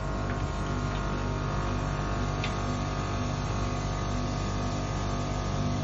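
Drain-cleaning machine running with a steady hum, its spinning cable working inside a cast-iron soil stack.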